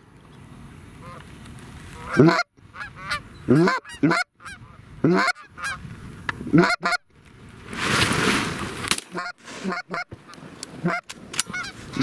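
Geese honking over and over as a flock flies in low overhead, each honk a short call rising sharply in pitch. A short rushing noise comes about eight seconds in.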